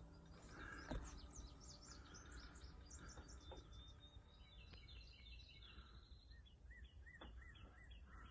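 Faint outdoor birdsong: many short chirps from several birds, a held high trilling note about four to six seconds in, and a run of short repeated notes near the end, over a faint low rumble.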